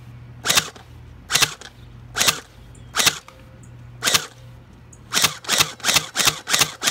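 Electric airsoft rifle firing single shots, each a sharp crack. The shots come about one a second at first, then in a quicker string of roughly three a second from about five seconds in.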